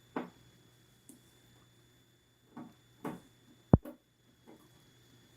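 Small scattered clicks and taps of a screwdriver and screw being worked out of a metal appliance chassis cover, with one sharp, louder click about three quarters of the way through. A faint steady high tone lies underneath.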